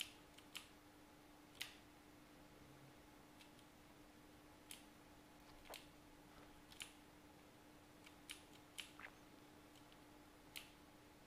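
Computer keyboard keys pressed one at a time: about a dozen isolated keystrokes at irregular gaps, over a faint steady hum.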